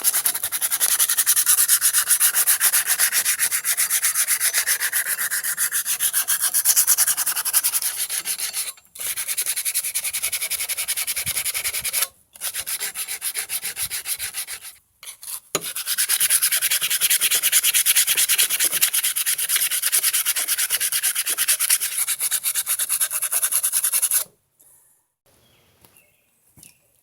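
Emery paper rubbed quickly back and forth by hand over a forged steel javelin head, a fast scratchy rasp, cleaning and smoothing the metal. It comes in long runs with brief pauses about nine, twelve and fifteen seconds in, and stops a few seconds before the end.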